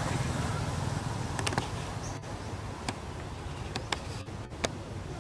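Forest ambience: a steady hiss over a low rumble, broken by about six short sharp clicks.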